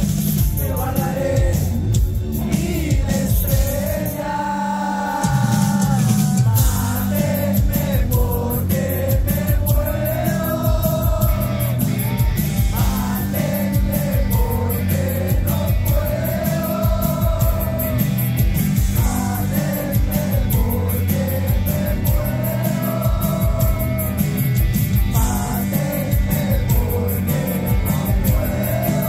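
Live rock band heard from the crowd: a male lead voice singing long held phrases over drums, electric guitars, bass and keyboards.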